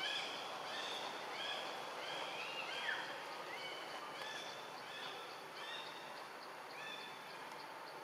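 A bird calling over and over in short, arched chirps, roughly two a second, over a steady background hiss.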